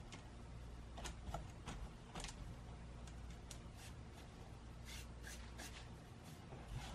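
Hands crumbling and loosening a clump of damp, hand-rolled fresh tea leaves over a bamboo basket: soft, scattered crackly rustles of leaves and fingers brushing the woven bamboo, over a faint steady low hum.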